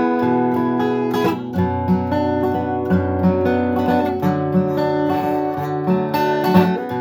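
Acoustic guitar strummed in a steady rhythm, ringing chords with no singing yet: the instrumental opening of a song.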